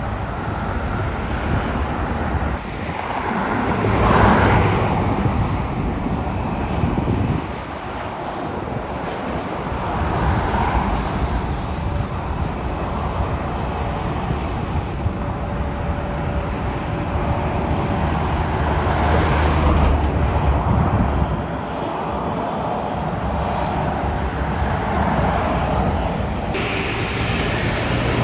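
Jet airliner engine noise from planes passing near the airport, a continuous rushing sound that swells twice, about four seconds in and again near twenty seconds in.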